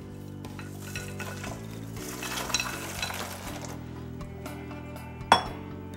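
Fresh tortellini poured from a bowl into a pot of boiling chicken broth: a soft splashing and bubbling, strongest two to three seconds in, then a single sharp clink a little after five seconds.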